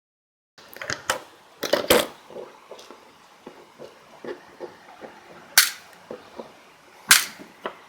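Sharp snaps and clicks from a small plastic electronics casing being pried and handled during disassembly, with lighter taps and clicks between them. The sound starts about half a second in; the loudest snaps come near one second, two seconds, five and a half seconds and seven seconds.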